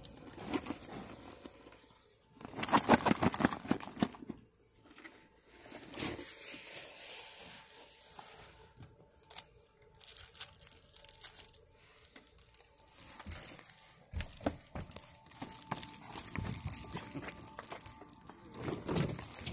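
Rustling and handling noise as a phone is moved about, irregular crinkling with scattered clicks and knocks; the loudest stretch comes about two to four seconds in.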